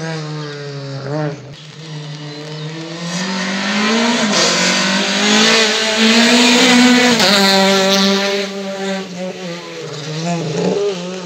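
A racing car's engine revving hard and climbing through the revs as the car speeds up the course. It passes close about seven seconds in with a rush of noise, and the pitch drops as it goes by. Engine blips rise and fall briefly near the start and again near the end.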